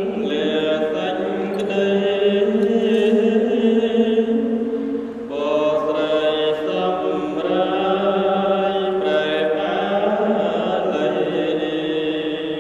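Theravada Buddhist chanting by a monk's voice amplified through a handheld microphone, in long held, steady notes with a short break about five seconds in.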